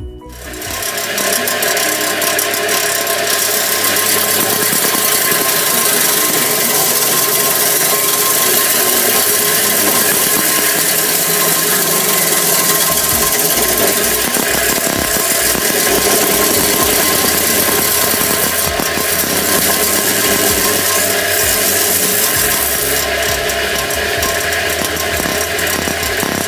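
Combination belt and disc sander starting up, reaching speed within about a second and a half and then running steadily and loudly, as a wooden ukulele tail block in a radius jig is pressed by hand against the sanding belt.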